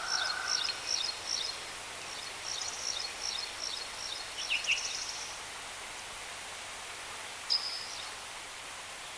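Birds chirping in rapid runs of short, high notes during the first half, then one brief call about seven and a half seconds in, over a steady outdoor hiss.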